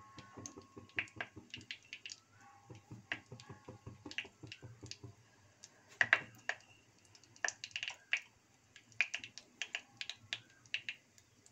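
Fenugreek seeds crackling as they fry in hot oil in a clay pot: irregular sharp pops, a few a second, the loudest about six seconds in.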